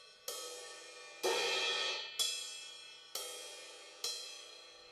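Ride cymbal struck five times, about once a second, each hit ringing and fading before the next.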